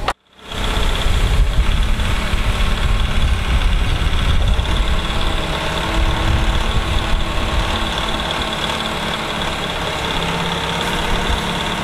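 Telehandler's diesel engine running steadily while its boom lifts a pallet of solar panels up to roof scaffolding.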